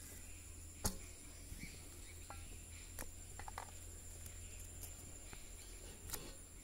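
Faint outdoor background: a steady high-pitched insect drone, with a few soft clicks, the sharpest about a second in.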